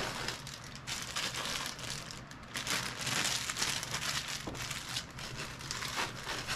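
Packaging crinkling and rustling as hands rummage through a box, with a denser stretch about halfway through.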